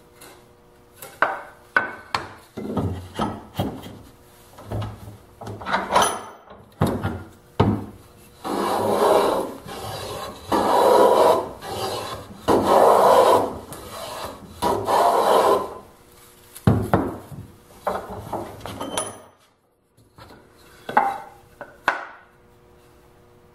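Hand plane shaving the edge of a wooden block to cut a chamfer. A run of short strokes is followed by four longer strokes in a row about midway, then a few short strokes again.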